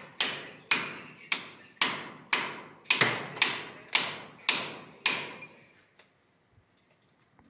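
Hand hammer striking a chisel to chase a plastered wall for conduit: a steady run of about ten sharp blows, about two a second, which stops about five seconds in.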